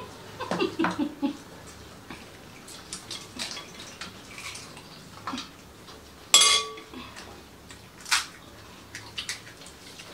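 Dishes clinking and tapping as pani puri is eaten: sparse light taps, with one loud ringing clink about six seconds in.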